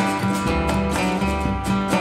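Background music: acoustic guitar strumming over a steady bass line.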